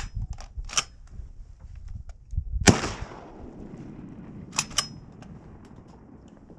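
A single shotgun blast about two and a half seconds in, its report echoing and fading away over the next couple of seconds. There are smaller sharp clicks around it, including a pair about two seconds after the shot.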